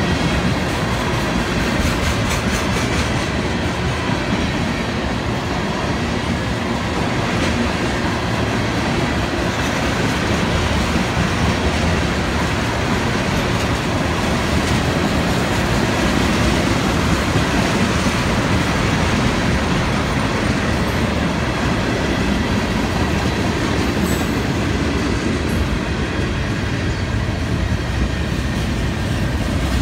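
Freight train's tank cars and boxcars rolling past at speed: a steady, loud rumble of steel wheels on the rails.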